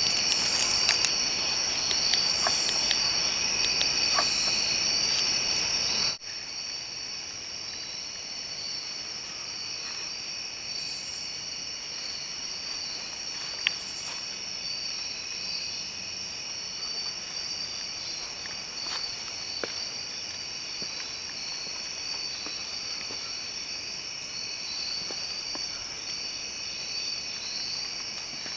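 Crickets chirping in a continuous high trill. For about the first six seconds a louder steady background noise sits under the trill and cuts off abruptly.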